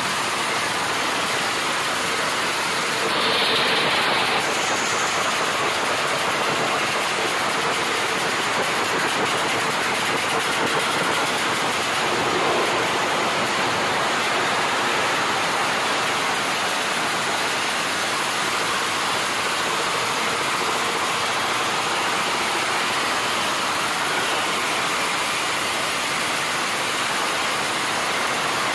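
Racing-tuned underbone motorcycle engines running with open exhausts, a loud, continuous din that does not let up.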